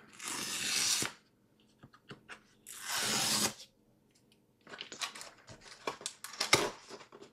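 Cardboard packaging being handled and opened: two scraping noises about a second long each, then a quick string of small rustles and clicks as the box's tab and flap are worked loose.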